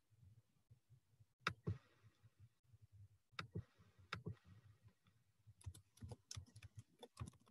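Faint computer keyboard typing: a few scattered keystrokes, then a quicker run of them over the last two seconds.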